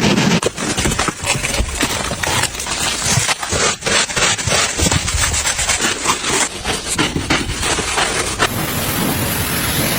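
Rapid rubbing and scraping strokes, several a second, giving way to a steady hiss about eight and a half seconds in.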